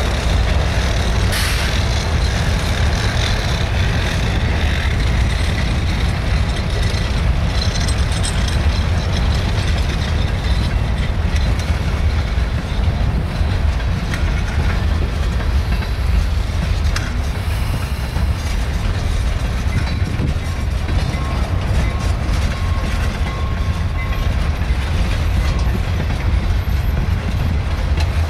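Freight cars, open-top gondolas and a covered hopper, rolling slowly past: a steady rumble of steel wheels on the rails.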